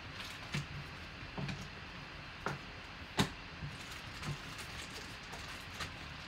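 Scattered light clicks and taps at irregular intervals over a steady background hiss, the sharpest about three seconds in.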